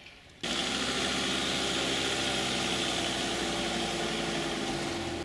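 A motor vehicle's engine idling, a steady running sound that starts abruptly about half a second in.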